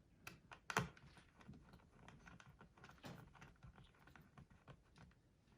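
Faint, scattered small clicks and taps of hands and a small screwdriver on parts inside an opened laptop, with one sharper click just under a second in.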